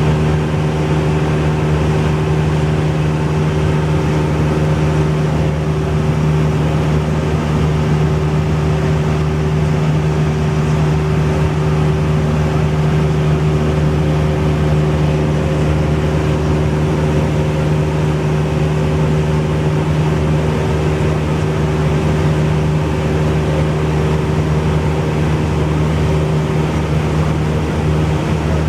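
Cessna 172's piston engine and propeller running steadily, an even drone that holds one pitch throughout.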